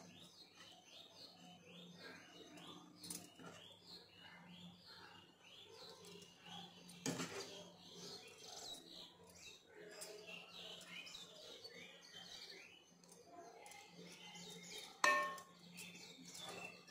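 Small birds chirping continuously in the background, over a low steady hum. A metal ladle knocks once faintly about seven seconds in and clinks loudly with a short ring near the end against the aluminium cooking pot as egg masala is spooned onto the rice.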